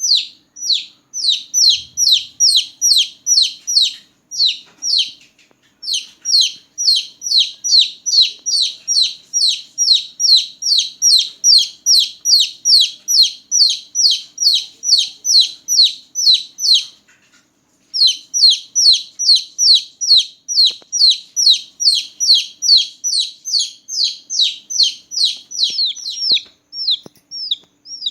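Newborn chicken chicks peeping loudly: a steady run of short, high chirps, each falling in pitch, about three a second, with brief pauses twice.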